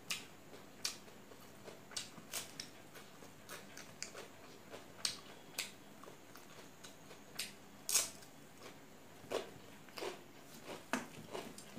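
Close-up eating sounds: irregular sharp wet clicks and smacks of chewing, with fingers working rice on a steel plate, one or two a second.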